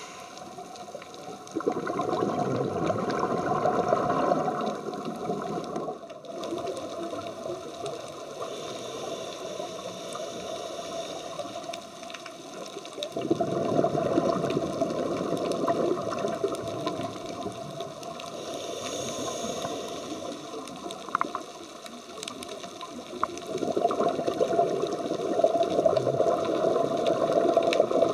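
Scuba diver's regulator heard underwater: a rush of exhaled bubbles three times, about ten seconds apart, with a quieter steady underwater hiss in between.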